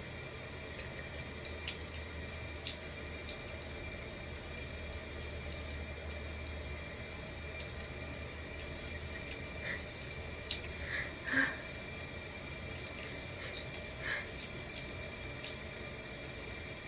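Shower water running steadily in a small room, with a few short, sharp sounds about ten, eleven and fourteen seconds in.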